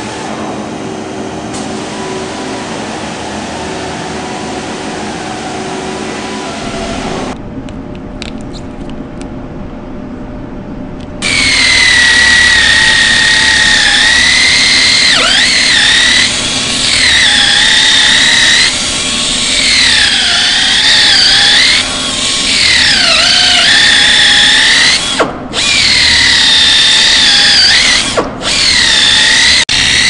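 Air-driven die grinder with a carbide cutter grinding out damaged rubber in an OTR tyre sidewall: a loud, shrill whine whose pitch dips again and again as the cutter bites, stopping briefly twice near the end. Before it, a stretch of steady machine noise, then a quieter pause.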